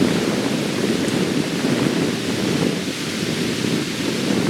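Strong wind of about 15 to 20 mph blowing across the microphone: a steady, loud rushing noise with low buffeting, rising and easing slightly.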